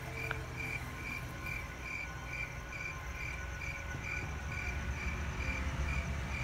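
Cricket chirping at night in an even rhythm, a little more than two chirps a second, over a faint low rumble.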